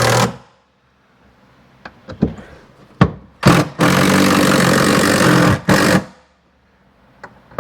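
Cordless power driver running steadily for about two seconds to drive in the strap mount's bolts, with a short burst just before and another just after. A few small clicks of parts being handled come before it.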